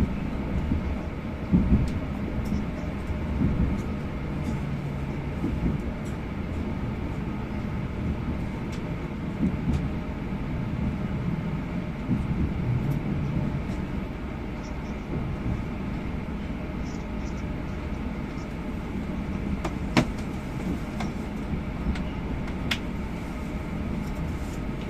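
Inside the passenger car of an Akita Shinkansen train: the low, steady rumble of the train running as it approaches a station stop, with a few sharp clicks.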